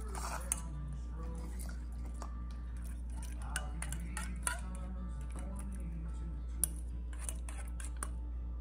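A utensil tapping and clicking against a bowl now and then, about half a dozen light, irregular clicks, while slime is mixed. Faint background music and a steady low hum run underneath.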